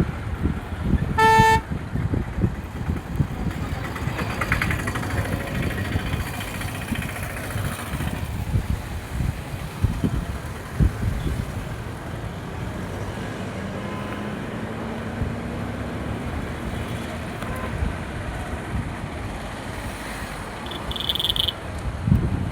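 Road traffic with a steady low rumble and scattered knocks. A vehicle horn gives one short toot about a second in, and an engine note rises slowly about two-thirds of the way through.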